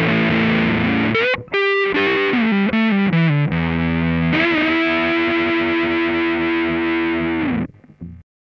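Electric guitar played through an Electro-Harmonix Big Muff π fuzz pedal, tone at about three o'clock and sustain at noon: a held fuzzy chord, a quick run of notes about a second in, then a long sustained chord from about four seconds in that cuts off shortly before the end.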